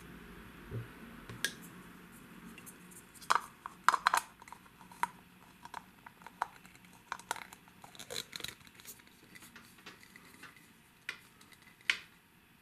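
Hard plastic pieces of a Tomy 'Hide Inside' stacking-cup figure clicking and knocking as they are handled and fitted together: a scatter of sharp clicks, the loudest a few seconds in and again near the end.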